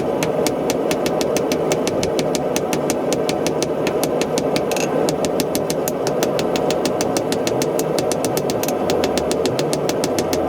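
Blacksmith's forge running with a steady roar and a fast, even ticking of about five clicks a second.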